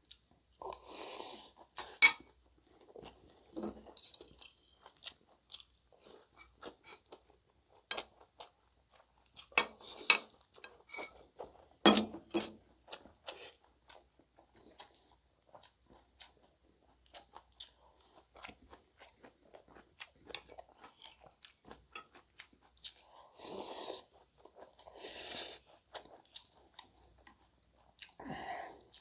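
Close-miked chewing and crunching of a Korean home meal (spicy chicken gaejang soup, rolled omelette, kimchi), with scattered sharp clicks, the loudest about 2, 10 and 12 seconds in.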